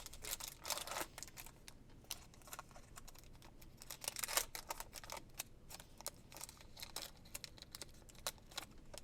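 Trading cards and their pack being handled at close range: a run of faint, irregular clicks and rustles as cards are slid and flipped.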